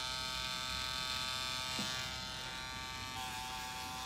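Permanent-makeup tattoo pen buzzing steadily as it works on an old grey eyebrow tattoo to remove it; its pitch drops slightly about three seconds in.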